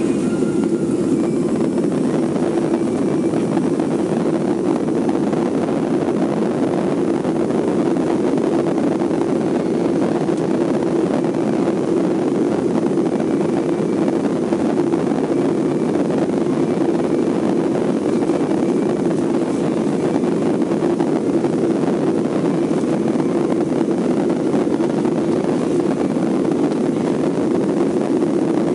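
Steady low drone inside the cabin of a Boeing 737-400 while it taxis, its CFM56-3 jet engines at idle taxi thrust, heard from a seat by the wing.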